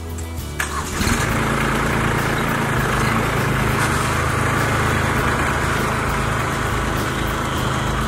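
Kubota B2261 compact tractor's three-cylinder diesel engine picking up revs about a second in, then running steadily under load as the tractor drives off carrying a tree top in its front loader.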